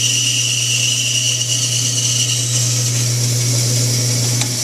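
Band saw running with a steady motor hum while its blade cuts through a small block of wood during a relief cut; the higher cutting sound fades out about halfway through.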